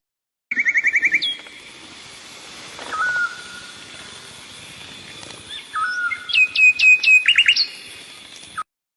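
Bird song: a fast trill of repeated notes opens it, followed by single whistled notes. Near the end comes a run of quick downward-slurred notes and a second short trill.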